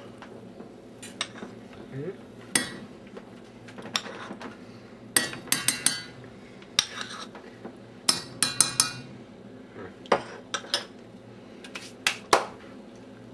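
Spoon clinking against the pot while macaroni and cheese is stirred: irregular sharp clinks, some single and some in quick runs of three or four.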